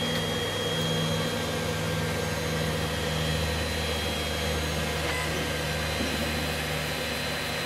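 Anycubic Chiron 3D printer running as a print gets under way. Its motors and cooling fans make a steady mechanical hum with a faint high whine.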